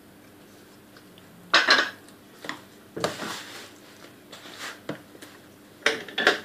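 A metal spoon and mixing bowl clatter and clink against each other. There is a loud clatter about a second and a half in, then a few lighter knocks and scrapes, and a pair of clanks near the end.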